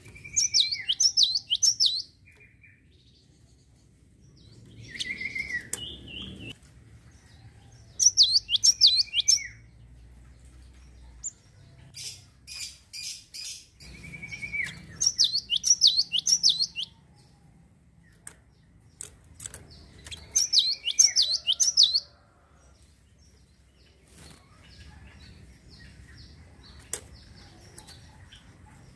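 A gelatik songbird singing in repeated phrases about every six seconds. Each phrase is a clear whistled note followed by a fast run of high chirps lasting about two seconds. Short clicks are heard between the phrases.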